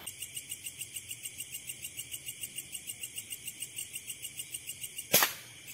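Insects chirping in an even fast pulse, about eight chirps a second. About five seconds in, a single sharp shot is fired at a roosting bird.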